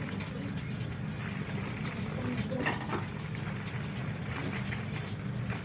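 Aluminium foil crinkling and rustling in irregular faint crackles as it is folded around a turkey neck, over a steady low hum.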